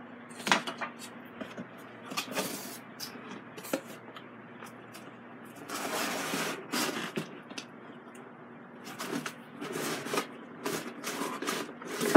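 Packaging being handled: a sharp knock about half a second in, then cardboard scraping and rustling as the box is tipped and its contents are pulled out, with more knocks and rustles near the end.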